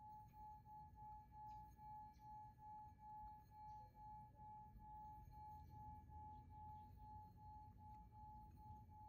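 Faint sound-healing track: a single steady high tone that pulses evenly about three times a second, like a singing bowl or tuning fork.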